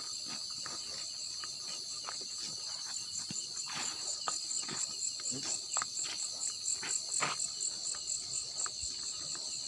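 Crickets and other insects chirping in a steady high chorus, turning into a fast pulsing trill from about three seconds in. A few light crunches and knocks stand out now and then over the top.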